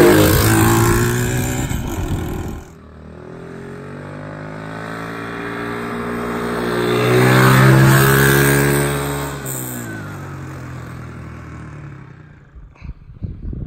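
A 125 cc ATV engine running loud and close, then, after a sudden cut, another 125 cc ATV approaching, passing loudest about eight seconds in and fading away, its engine note dropping in pitch as it goes by.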